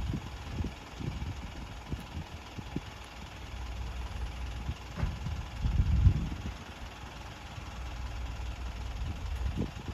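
Diesel engine of the Asa Seaside Railway DMV (dual-mode rail/road vehicle) running with a low rumble, with scattered knocks and a louder bump about six seconds in.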